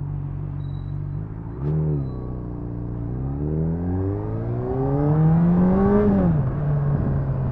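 Honda CBR600RR's inline-four engine under way at low revs, with a brief throttle blip a second and a half in, then the revs climbing steadily for about three seconds as the bike accelerates before falling away.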